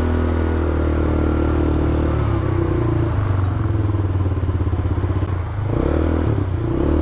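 200cc ATV engine running at low revs under gentle throttle, its pitch dropping about two and a half seconds in, dipping briefly, then picking up again near the end. The engine is new and still being broken in.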